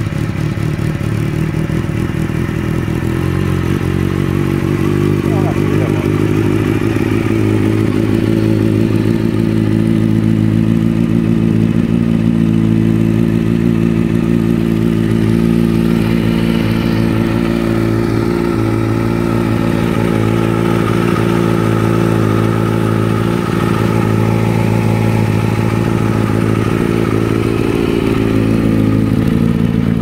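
Kawasaki ZX-6R 636 inline-four motorcycle engine idling steadily through an aftermarket S2 end-can silencer.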